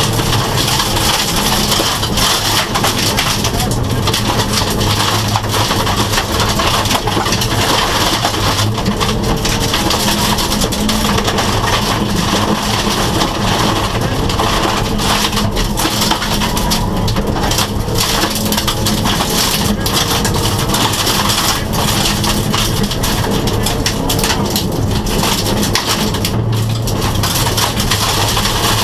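Subaru rally car's engine running hard at speed, heard from inside the stripped cabin, over a constant crunch and rattle of gravel under the tyres and against the underbody.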